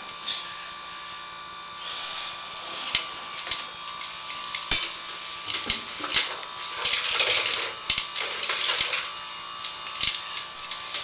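Sewer inspection camera rig working inside a cast iron drain line: a steady electrical hum, with scattered clicks and knocks and short scraping, hissing stretches as the push cable and camera head move through the pipe.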